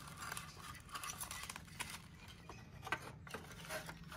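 Faint scattered clicks and taps of plastic headlight parts being handled as a TVS Ntorq headlight unit is fitted into a Honda Dio's headlight housing, with a low steady hum underneath.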